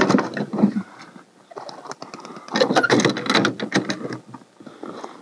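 Knocks, clicks and rustling of hands working at the door of a plywood pigeon box, in two bursts: one right at the start and a longer one from about two and a half seconds in.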